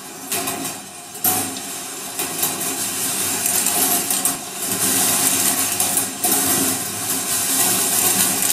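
Marbles rolling and clattering along the stainless steel wire tracks of a tabletop rolling ball sculpture: a continuous rattling rumble with sharp clicks. It grows louder and fuller about halfway through as more marbles are set running.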